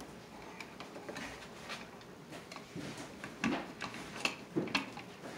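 Irregular small clicks, taps and rubbing from a hand tool and electrical cable being worked at a wall outlet box, with a cluster of sharper clicks about three and a half to five seconds in.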